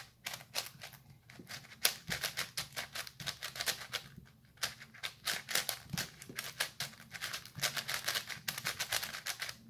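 A 5x5 speed cube being turned quickly by hand, its plastic layers clicking in rapid runs of turns with a couple of brief pauses.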